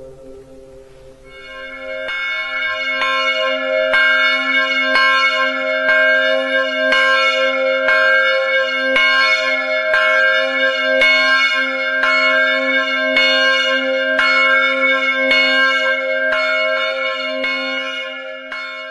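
Church bell tolling, struck about once a second, each stroke ringing on into the next; it starts about a second in and fades out near the end.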